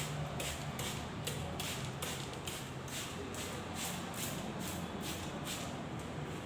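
Hands rubbing and scratching the scalp and hair in rhythmic strokes during a head massage, about three strokes a second, stopping near the end, over a steady low hum.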